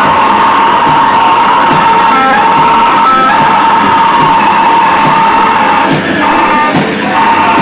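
Live harsh noise music at high volume: a dense wall of distorted electric guitar noise over a steady shrill whine like guitar feedback.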